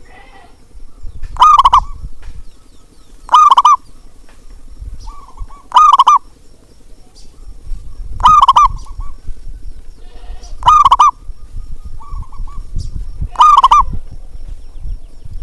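Zebra dove (perkutut) cooing: six loud, quavering coos about every two and a half seconds, with softer coos between them, over a low rumble.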